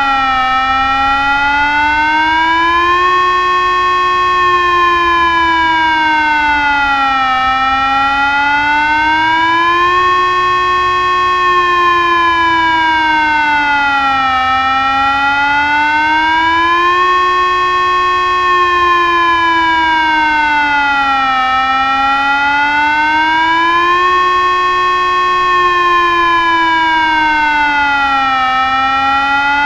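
Tesla UEAJ-600 electronic siren sounding the Czech 'General Warning' civil-defence signal: a loud, wavering tone that slides up and down about once every seven seconds.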